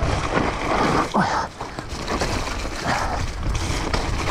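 Mountain bike riding through wet, muddy trail: rushing air buffeting the microphone with a low rumble, mixed with tyre and mud noise, rising and falling unevenly.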